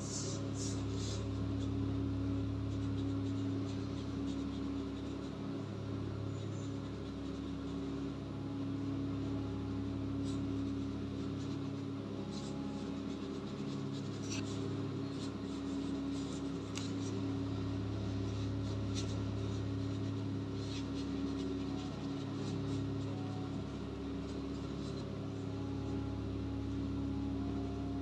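Faint scratches and light ticks of a brush pen and water brush working on sketchbook paper, scattered over a steady low drone.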